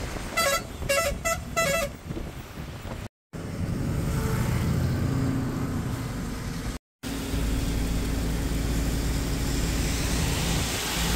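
A vehicle horn honks about four short times in quick succession near the start, followed by steady engine and road noise from a running vehicle.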